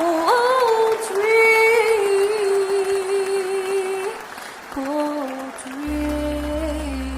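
Song intro: a voice sings long held notes with small slides between them over a backing track, and a low bass note comes in about six seconds in.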